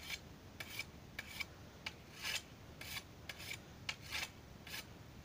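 Hand scythe slicing through tall grass: a quick series of about a dozen short swishes, two or three a second.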